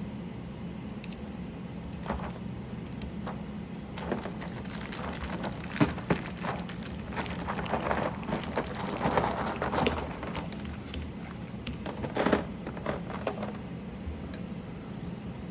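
Irregular small plastic clicks and rattles from handling a mechanical keyboard's keycaps and switches, thickest in the middle and thinning out near the end, over a steady low hum.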